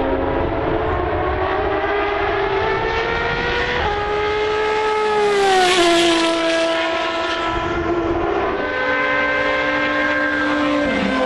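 Open-wheel single-seater racing car engines at high revs passing by. The engine note climbs for a few seconds, then falls sharply about five seconds in as a car goes past closest and loudest. A steadier engine note follows.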